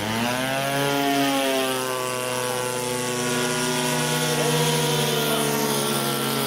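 A radio-controlled model airplane's small propeller engine running at high revs. Its pitch rises sharply at the start, then holds nearly steady as the plane climbs away.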